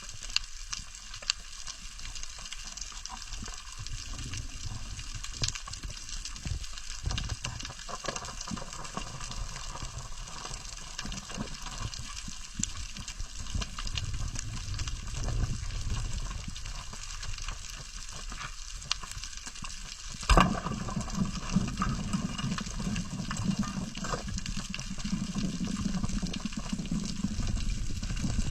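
Underwater reef crackle: a dense, steady field of tiny clicks of the kind snapping shrimp make. About twenty seconds in there is one loud sharp crack, followed by a low rumble of moving water.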